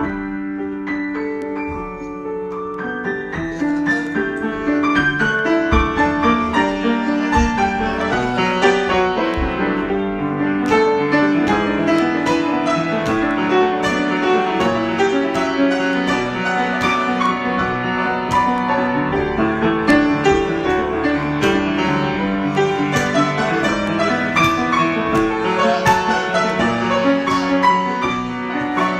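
Solo piano improvisation, many notes played together in a flowing texture, softer and thinner for the first few seconds before filling out.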